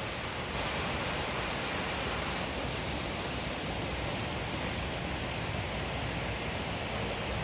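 Waterfall's falling water rushing in a steady wash of noise, a little louder from about half a second in.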